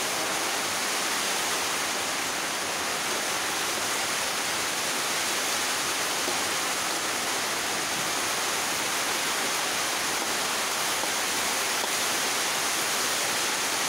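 Steady, even hiss of chopped chilies cooking in a pan on a gas stove.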